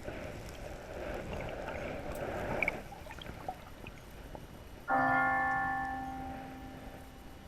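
A bell struck once about five seconds in, ringing with several clear tones together and dying away over about two seconds. Before it, a few seconds of rushing noise.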